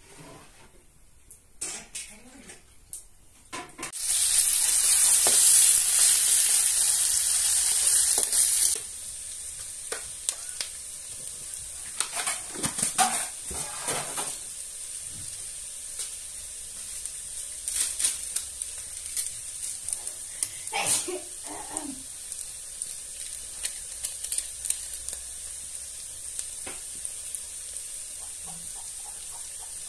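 Sliced onions and tomato frying in hot oil in a metal wok. About four seconds in, a loud burst of sizzling starts; after some four seconds it drops to a steady, quieter sizzle. A utensil clinks and scrapes against the pan now and then.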